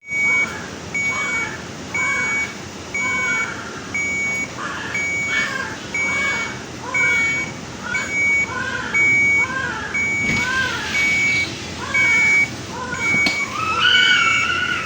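A patient monitor beeping steadily, a short high tone about once a second, over a newborn's short, pitched gasping cries that come with each breath, the sign of severe respiratory distress. A longer cry rises and falls near the end.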